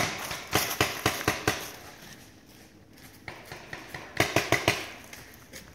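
Paintball marker firing in two quick volleys of sharp pops, about five shots a little under a second and a half in, then about four faster shots just past four seconds in.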